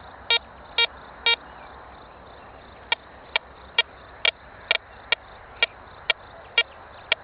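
Golden Mask metal detector beeping in short single-pitched tones as its coil sweeps over a coin hidden under a stone: each beep is the detector's target signal. Three beeps come about half a second apart, then after a short pause about ten shorter beeps follow at roughly two a second.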